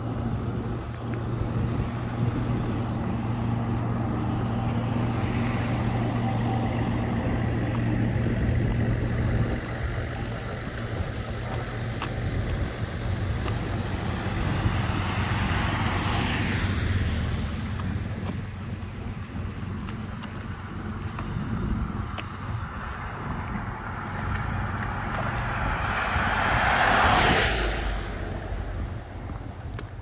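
Cars passing on a wet, slushy road, their tyres hissing on the wet pavement as each swells and fades: an SUV going by close about halfway through, and a louder pass near the end. A low, steady engine hum sits underneath for the first third.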